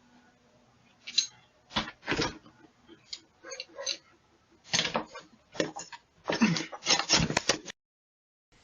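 A run of irregular short scuffs, rustles and knocks with a few indistinct voice sounds, picked up by a doorbell camera's microphone as a man moves about at the front door; it cuts off abruptly near the end.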